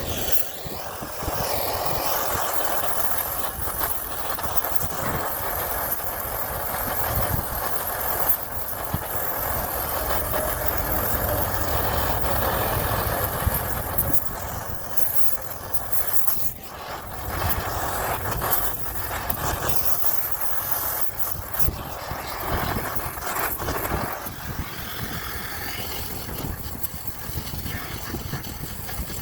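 Brazing torch flame burning with a steady hiss while a cracked copper refrigerant line is heated for repair.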